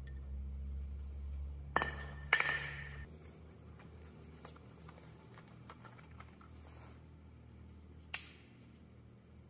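Small metal parts clinking twice with a brief ring about two seconds in, then a single sharp click near the end. A low steady hum underneath stops about three seconds in.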